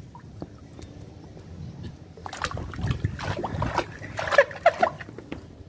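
Water splashing and sloshing in a shallow inflatable paddling pool as a baby's hands move and slap in it: a run of short splashes starting about two seconds in, the loudest a little after four seconds.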